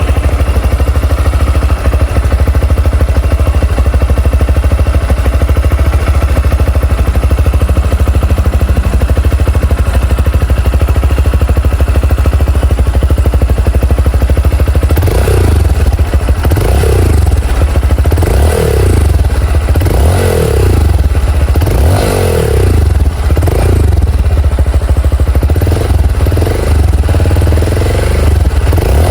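Exhaust of a nearly new Honda XR190L's single-cylinder engine idling steadily for about fifteen seconds, then revved in a string of quick throttle blips, roughly one a second, each rising and falling back.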